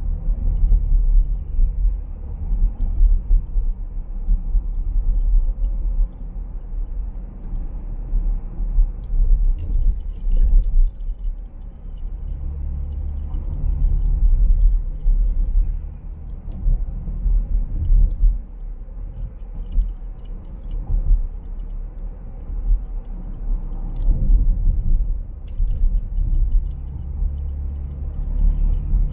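Low, fluctuating rumble of a car driving, engine and tyre noise heard from inside the cabin, with a few faint ticks.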